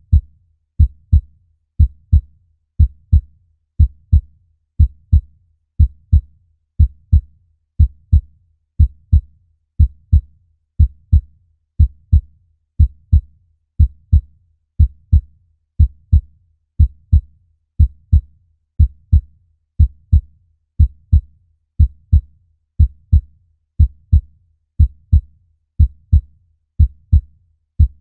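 Human heartbeat: a low double thump (lub-dub) repeating steadily about once a second.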